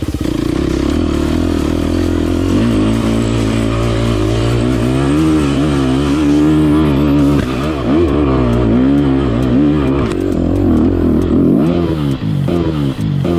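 Yamaha YZ dirt bike engine revving hard under load on a steep dirt hill climb, its pitch repeatedly rising and falling as the throttle is worked. Near the end the engine note drops and turns choppy as the bike rears up on the slope.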